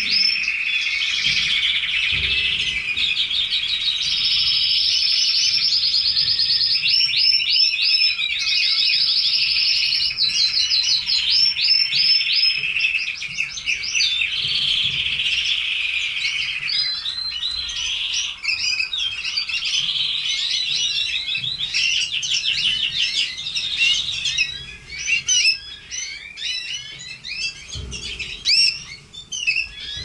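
Red canaries singing: a long, continuous canary song of rapid trills and rolls, breaking about halfway into shorter, separate phrases and chirps that thin out toward the end.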